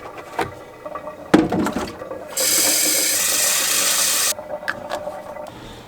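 A knock, then running water for about two seconds that starts and stops abruptly, with a few light knocks around it.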